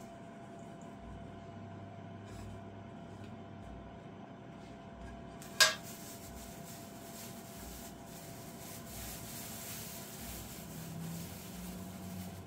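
Kitchen handling sounds: a single sharp clack about halfway through as a plate is set down, followed by the crinkling rustle of a thin plastic bag as its contents are tipped into a small bowl.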